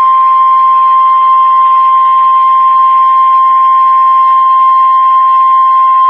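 NOAA Weather Radio's 1050 Hz warning alarm tone: one steady, loud, single-pitched tone held without a break, the alert signal that a warning broadcast, here a severe thunderstorm warning, is about to follow.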